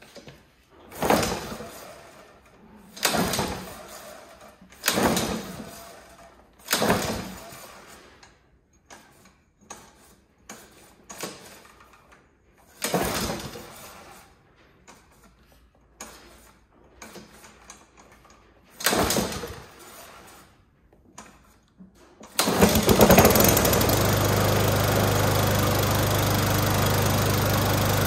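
Honda walk-behind lawn mower's engine being pull-started from cold: six yanks of the recoil starter cord turn it over without it firing. On the next pull, about 22 seconds in, it catches and settles into a steady run.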